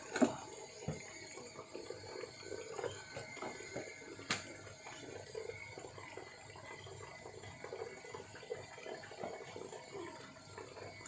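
Water splashing and sloshing irregularly as a hand net is worked through a fish pond to catch freshwater fish, with a sharp knock just after the start and a lighter click about four seconds in.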